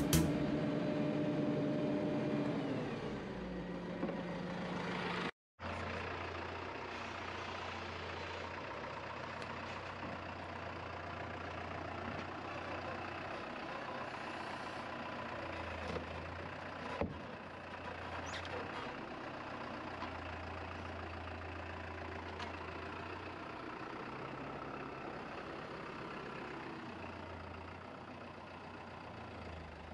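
Farm tractor diesel engine running at a steady low speed. The sound breaks off for a moment near the start, and a couple of short knocks come partway through.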